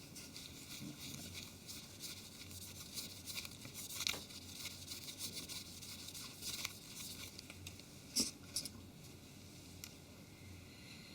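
Faint handling noise from a mobile phone being handled by hand: light rubbing and small scattered clicks, with a sharper knock about four seconds in and a pair of sharp clicks about eight seconds in.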